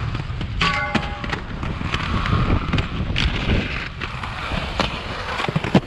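Inline skate wheels rolling over a concrete skatepark with a steady rumble. A few sharp clacks cut through it, and there is a brief high squeal under a second in.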